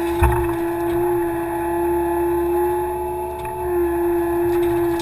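Kubota KX080 excavator running under load, a steady high whine over the diesel engine, heard from the cab. One sharp thump about a quarter second in as the bucket strikes the ground and debris, and the whine shifts slightly in pitch a little past halfway.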